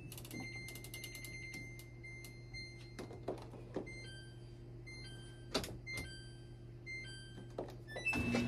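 Steady low hum with light clicks and a few scattered knocks as a plastic detergent cup is handled at a laundry machine; faint short tones sit in the background.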